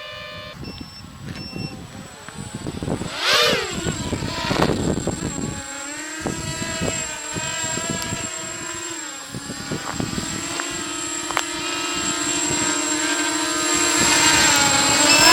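Emax MT1806 2300KV brushless motors with 5045 bullnose props on a 4S battery, whining on a small multirotor and changing pitch with the throttle. Sharp rises and falls come a few seconds in, then the pitch holds steady before rising again near the end.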